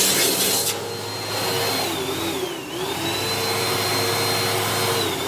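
Upright vacuum cleaner running on the floor, a steady motor whine whose pitch dips about two seconds in and recovers, then dips briefly again near the end, with a short rush of noise at the start.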